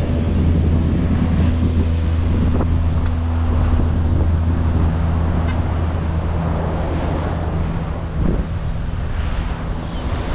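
Wind buffeting the microphone over a steady low engine hum, which weakens about eight seconds in.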